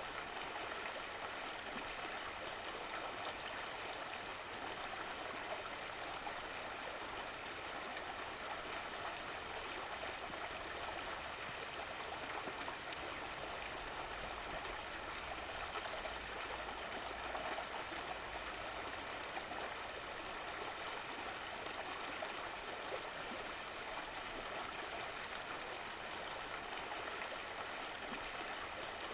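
Stream of running water flowing and trickling steadily.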